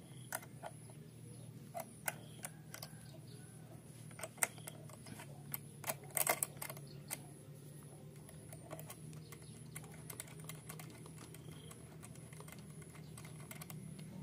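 Small open-end wrench clicking and scraping against a metal fitting on a brush cutter's carburetor as the fitting is loosened and taken off. The light metal clicks are irregular, with a quick cluster about six seconds in.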